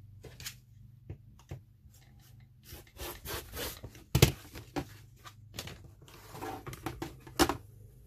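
Rotary cutter rolling through leather along an acrylic ruler: a rough scraping cut about three seconds in and another about six seconds in. Two sharp knocks, the louder one about four seconds in, from the tools being handled on the cutting mat.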